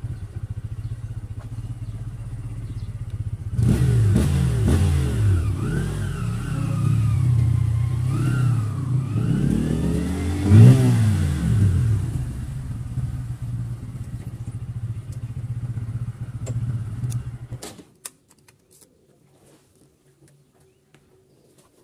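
Motorcycle engine running at low speed, its pitch rising and falling with the throttle, then switched off abruptly about three-quarters of the way through, followed by a few faint clicks.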